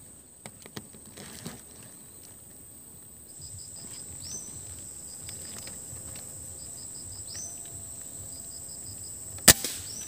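A single sharp shot from a scoped air rifle about nine and a half seconds in, fired at a perched punai, over a steady high insect buzz.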